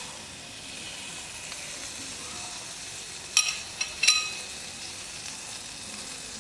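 Butter sizzling softly as it melts in a hot aluminium saucepan, a steady hiss. Two short metallic clinks sound about three and four seconds in.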